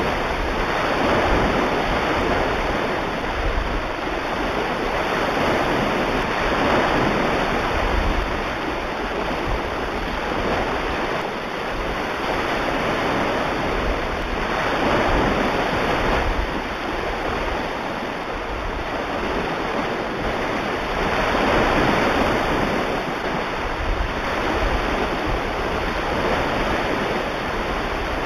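Recorded ocean surf: a steady rushing wash of waves, swelling louder every several seconds as each wave breaks.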